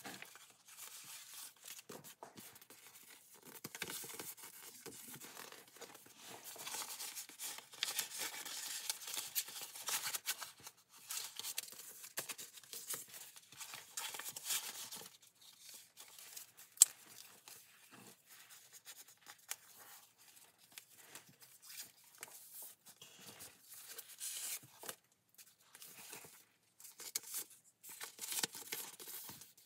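Paper rustling and crinkling as the pages and envelope pockets of a handmade junk journal are turned and paper tags are slid out, coming and going in irregular bursts. A single sharp tap or click a little past halfway.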